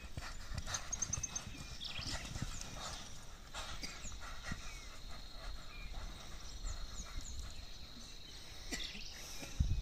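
Hoofbeats of a horse and a steer running on a loose dirt track, heard at a distance as scattered thuds, with bird chirps and a steady high insect buzz behind. A low thump near the end.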